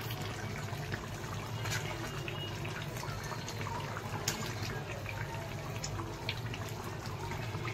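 Chicken curry bubbling in a small iron kadai on a gas burner, a steady wet simmer with a few sharp clicks and scrapes of a steel spatula stirring against the pan.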